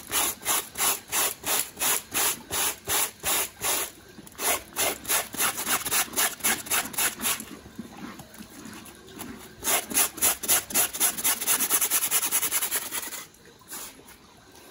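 A stiff-bristled, wooden-backed scrub brush scrubbing a wet, soapy fabric school backpack in rapid back-and-forth strokes, about three a second. The strokes come in several runs with short pauses and stop about a second before the end.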